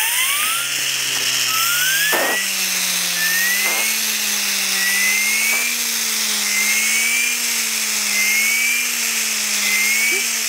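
Sbabam Tornado blow-powered toy car being blown into through its turbo, spinning the mechanism inside: a whirring hum climbs in pitch over the first two seconds, then holds steady with a slight waver under the hiss of breath. A short rising whistle repeats about every second and a half.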